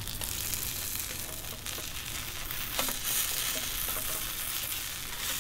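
Black bean veggie patties sizzling as they fry in a nonstick pan, a steady hiss, with a fork prodding at the edge of a patty and a few faint clicks against the pan.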